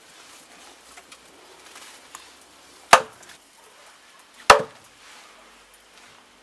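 Two sharp chops about a second and a half apart: a heavy knife cutting through chicken onto a hard surface.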